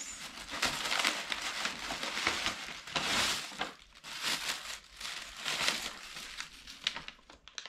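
Tissue paper crinkling and rustling in uneven bursts as it is pulled out of a gift bag, loudest about three seconds in.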